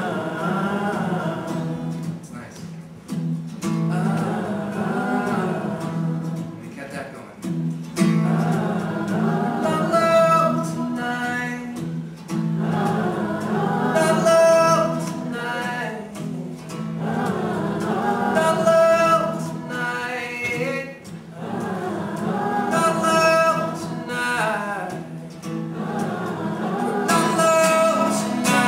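A man singing live over a strummed steel-string acoustic guitar. His vocal phrase comes back about every four to five seconds, each one peaking on a held note.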